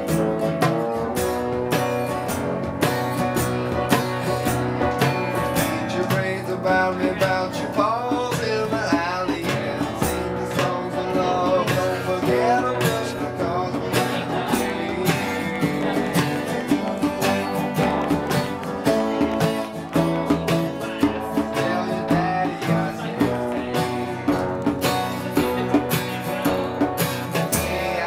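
Live acoustic guitar strummed steadily with a trombone playing melody lines along with it.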